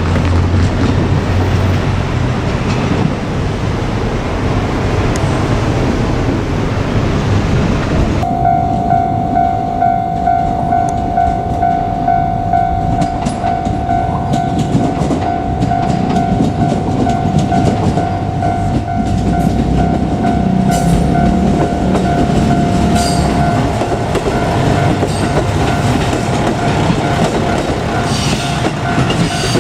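Steady rushing noise, then about eight seconds in a level-crossing warning bell starts ringing and keeps on. Later a KiHa 200 diesel railcar approaches, its rumble growing and its wheels clicking over the rail joints near the end.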